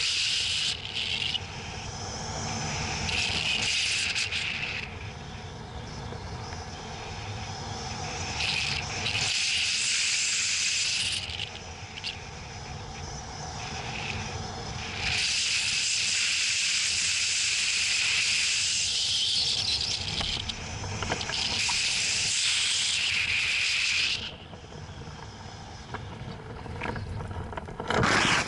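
Rushing wind from a hang glider's flight hitting a wing-mounted camera's microphone, its hiss swelling and dropping away in stretches of a few seconds over a low rumble. Just before the end comes a sharp loud scrape as the glider touches down on ploughed soil.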